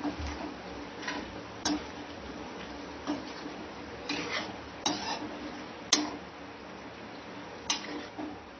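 Steel spatula knocking and scraping against a metal kadai while potatoes, fried onions and masala are stirred and mixed, a knock or scrape every second or so at an uneven pace.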